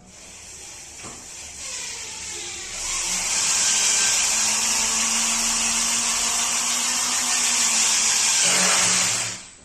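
A small electric motor running with a loud, even hiss and a faint steady hum, building up over about three seconds, holding steady, then cutting off near the end.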